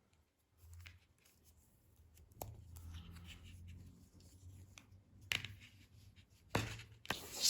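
Faint handling noises: a few light clicks and soft rubbing, as charging cables are handled, over a low steady hum.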